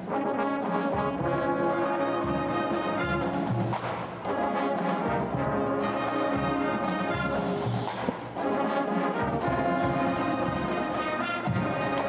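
High school marching band playing, led by its brass: trombones, trumpets and larger brass horns. The music dips briefly between phrases about four and eight seconds in.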